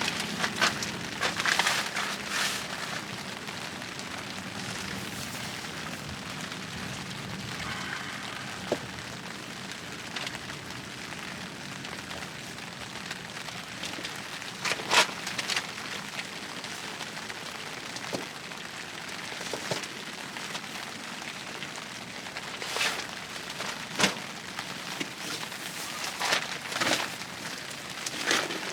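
Steady rain hissing on a tent, broken by scattered sharp taps and short bursts of rustling.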